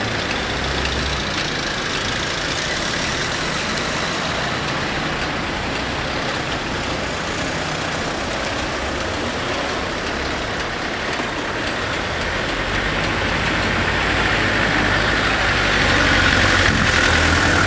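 Cars and small vans driving slowly past at close range in a queue, engines running at low speed. The engine hum grows louder over the last few seconds as a small van comes up close.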